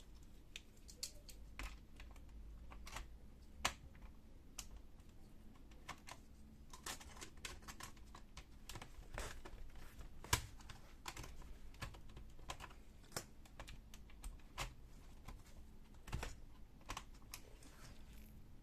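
Irregular light clicks and taps of plastic and small metal parts as a Lenovo G50-30 laptop's case and screws are handled during disassembly, with two sharper clicks about four and ten seconds in.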